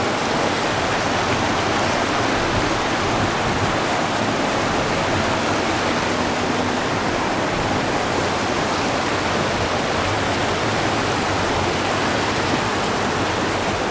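Shallow mountain river rapids: water rushing and churning over boulders in a steady rush.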